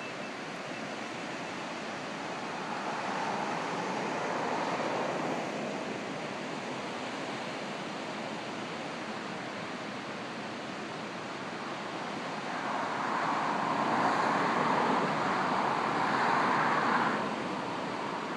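Pacific surf breaking on a sandy beach among rocks: a steady rush of waves that swells twice, briefly a few seconds in and louder for several seconds in the second half.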